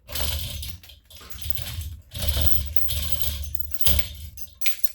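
Manual chain hoist being worked by hand to lower an engine: the chain rattles and clinks through the hoist in three long pulls, followed by a couple of sharp metallic clanks near the end.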